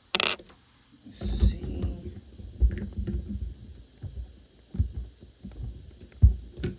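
Handling noise on the recording phone's microphone while the lens is covered: a brief rustle at the start and another about a second in, then irregular low bumps and rubbing.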